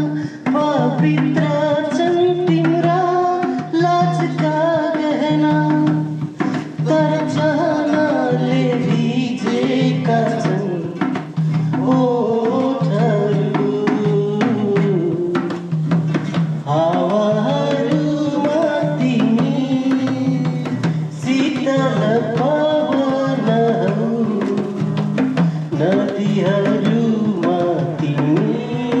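Background music with a steady hand-drum rhythm under a melody that slides in pitch, in the style of Nepali folk music.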